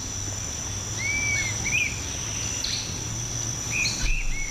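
Tropical rainforest ambience: insects keep up a steady high-pitched drone. Over it come a few short bird whistles and chirps, one about a second in and a couple near the end.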